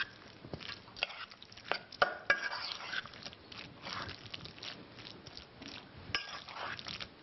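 A utensil mixing chopped raw llampuga tartar in a bowl: irregular clicks and knocks against the bowl with soft stirring noise between them, the sharpest knocks about two seconds in.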